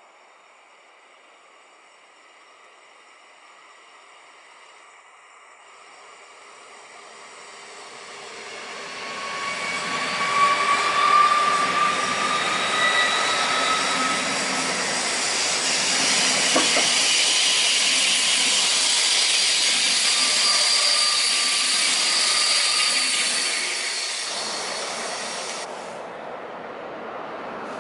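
Frecciarossa electric high-speed train approaching and passing at speed: a swelling rush of wheels on rail and air that is loudest for over ten seconds, with faint high whining tones that drift slightly lower. Near the end it cuts off suddenly to the quieter rumble of a freight train approaching in the distance.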